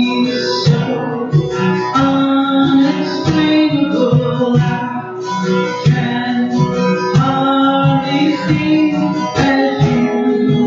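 Live song: an acoustic guitar strummed, with a voice singing over it and congas keeping the beat.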